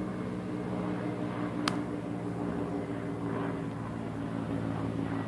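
Steady drone of propeller airplane engines overhead, with a single sharp click about one and a half seconds in.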